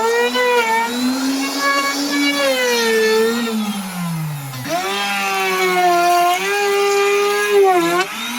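Electric hand router cutting a molding into a wooden door, its motor whine rising and falling as the bit loads and frees in the wood. Its pitch sinks steadily under load to a low point about four and a half seconds in, then jumps back up.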